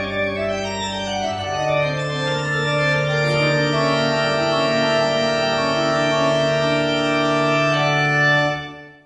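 Organ music playing sustained chords over a long held bass note. It ends on a final held chord that stops abruptly near the end.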